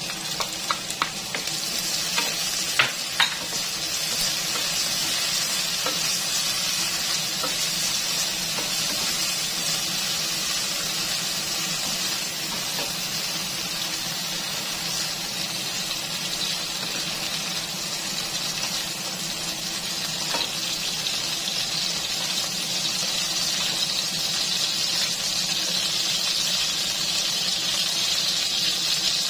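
Green peas frying in hot oil in a non-stick wok: a steady sizzle. A few light clicks of the ladle against the pan come in the first few seconds, and one more about two-thirds of the way through.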